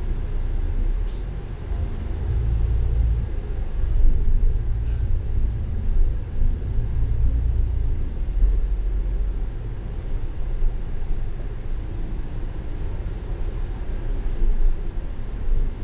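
Steady low rumble of a double-decker bus's engine and tyres while it drives along, heard inside on the upper deck, with a few faint high clicks.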